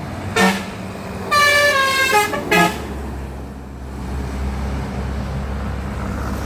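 Bus telolet horn, a multi-tone musical air horn, sounding a short toot, a longer note that steps down in pitch, and another short toot. A low engine rumble follows as the bus goes by.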